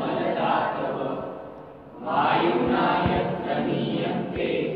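Background music with a choir singing. It dips briefly a little under two seconds in and swells back.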